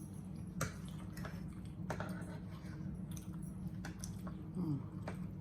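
Close-up chewing and wet, squishy mouth sounds of someone eating beef liver in gravy, with a few sharp clicks scattered through, over a steady low hum.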